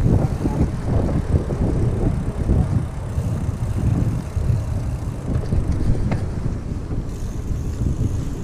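Riding noise from a mountain bike rolling on pavement: unsteady low rumble of wind on the camera microphone together with tyre noise, with a faint click about six seconds in.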